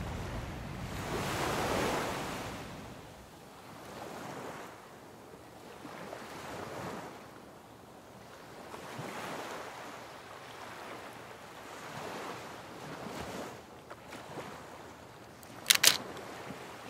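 Small waves washing ashore on a beach, the surf swelling and fading every few seconds, with some wind on the microphone. A brief sharp double click, the loudest sound, comes near the end.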